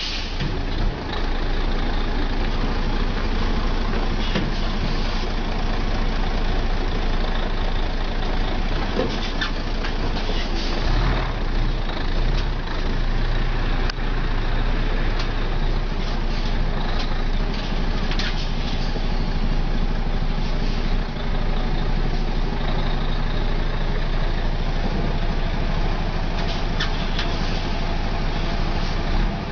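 Heavy logging truck's diesel engine running at low revs while the truck manoeuvres slowly, with a few short hisses now and then.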